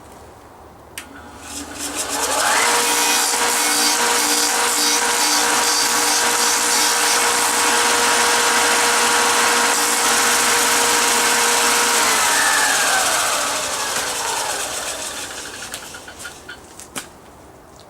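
Belt/disc sander motor starting up with a rising whine about two seconds in, then running steadily with a hiss as the disc sands the rough-cut ends of a red alder cane handle. It is switched off around twelve seconds in and winds down with a falling whine, followed by a few light knocks.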